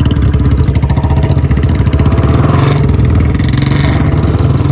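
Royal Enfield Standard 350 single-cylinder engine running loud, with a fast, even thumping exhaust beat whose tone shifts a little about halfway in.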